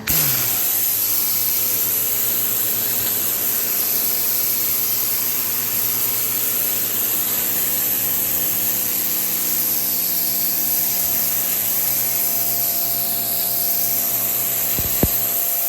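Electric pressure washer running steadily, its water jet hissing against a hard surface over a constant motor hum, the hiss swelling and fading as the spray moves. A single sharp click comes near the end.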